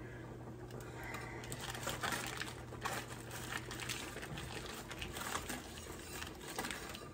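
Wire whisk stirring a thick milk-and-cream-cheese sauce in an enamelled pot, the wires scraping and clicking irregularly against the pot. A low steady hum stops about four seconds in.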